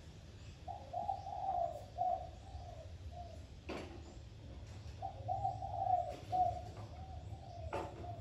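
A dove cooing in the background: two phrases of several low notes, a few seconds apart. Two sharp clicks fall between and after the phrases.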